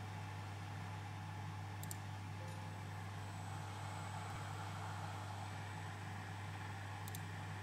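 Steady low electrical hum from lab equipment, with a thin high whine coming in about three seconds in and two faint ticks, near two and seven seconds.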